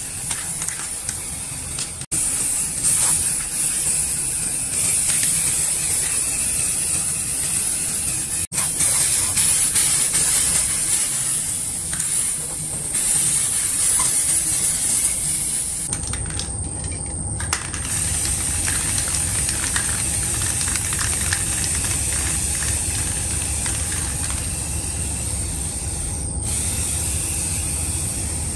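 Aerosol spray-paint can hissing steadily as it sprays paint onto a bicycle frame.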